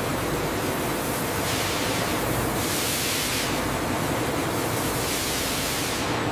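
Water jets spraying over a produce-washing conveyor: a steady rushing hiss. The hiss grows brighter about a second and a half in and again around three seconds in.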